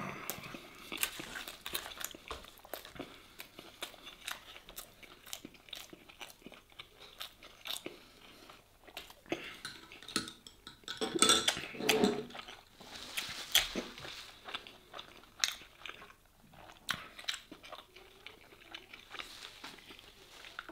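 Close-up chewing and biting of a crusty toasted-bread sandwich with melted cheese and sujuk: many small crisp crunches and wet mouth sounds. About halfway there is a louder stretch as he sips a drink through a straw.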